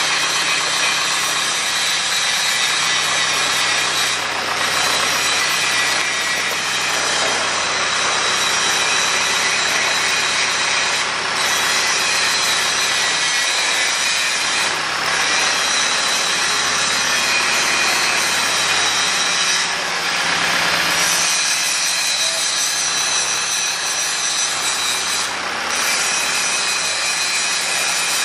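Crane hoist hauling on the rope of a single-rope grab bucket, running steadily with a high mechanical whine and grind as it closes the bucket's jaws on a pile of sand and lifts it clear.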